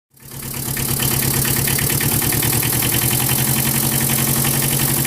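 An engine idling steadily with a rapid, even pulse, fading in over the first second.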